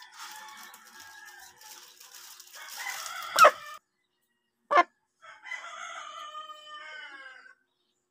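Chickens calling: a long drawn-out call, two short, sharp, loud squawks about three and a half and five seconds in, then a rooster crowing for about two seconds.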